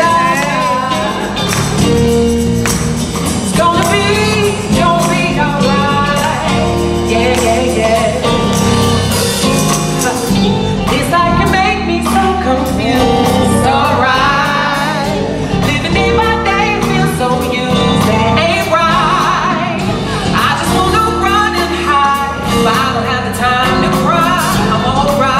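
Live band playing, with drums, bass guitar, electric guitar and keyboards under a man singing lead.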